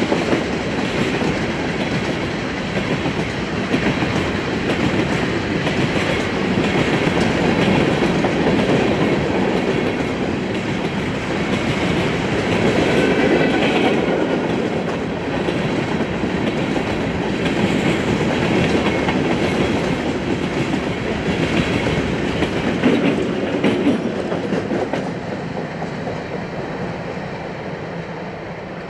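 Railroad cars rolling past close by, their wheels clicking over the rail joints; the sound fades over the last few seconds.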